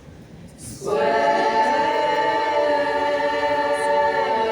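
Barbershop chorus singing a cappella, holding one sustained chord on the word "square". The chord starts about a second in with a soft "s" and stays steady.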